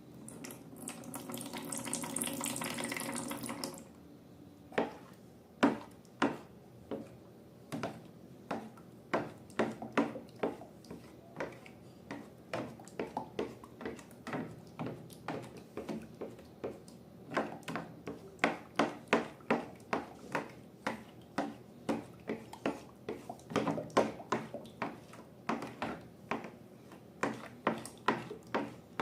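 Liquid pouring for about four seconds, then a long run of short wet clicks and squelches, a few a second: slime being stirred and mixed.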